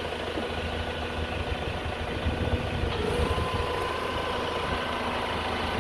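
Engine of a piece of construction machinery running steadily with a low rumble, a thin whine joining about three seconds in.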